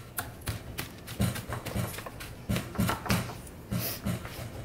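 Soft thumps, about two a second, of hands pressing graham cracker crumbs down into a metal springform pan on a stone counter, packing the cheesecake crust.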